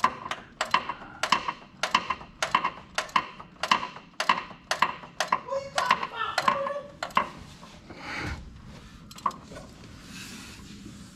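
Metal hand tools clinking and clattering: a quick run of sharp, ringing metallic knocks, about two or three a second, as tools are rummaged through. About seven seconds in it thins to a few scattered knocks.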